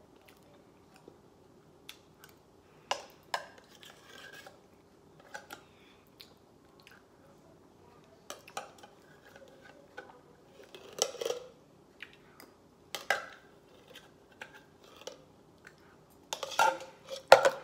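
Metal spoon scraping and clinking against the inside of an open tin can as food is scooped out: scattered sharp clicks, coming louder and quicker near the end.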